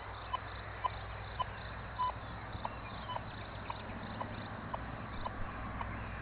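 Metal detector giving short, even beeps at about two a second over a steady low hum.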